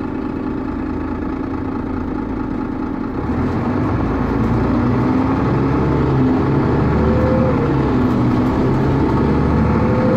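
Mercedes-Benz O530G Citaro articulated bus's diesel engine idling steadily, then about three seconds in it grows louder as the bus pulls away and accelerates. A whine rises in pitch twice as it gathers speed.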